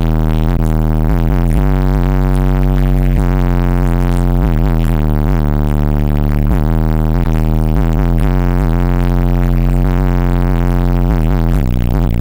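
Four 12-inch Pioneer Premier TS-W3002SPL car subwoofers playing loud, bass-heavy music, with a deep steady low end and notes changing every second or so.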